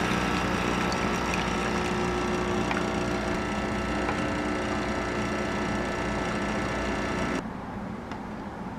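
Capsule espresso machine's pump running as a shot pours into a glass, vibrating hard enough to shift the glass, with liquid trickling. It stops about seven seconds in.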